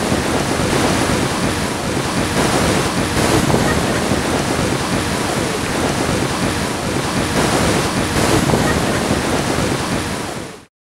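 Shallow surf washing in and out over sand, with wind buffeting the microphone; it cuts off suddenly near the end.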